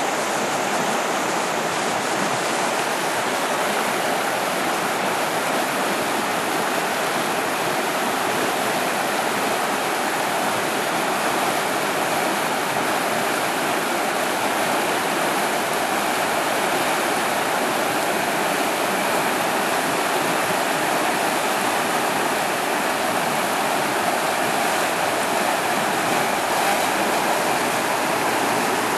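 River rapids rushing over rocks: a steady, even rush of whitewater.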